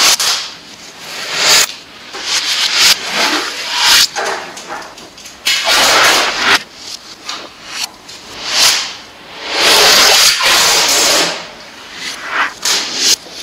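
Orange adhesive tape being pulled, peeled and rubbed down against a wall: a run of short rasping, hissing bursts with one longer pull about ten seconds in.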